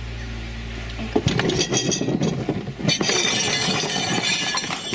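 A vehicle engine running steadily, then about a second in a busy clatter of knocks, rattles and clinking, with the loudest clinking near the end.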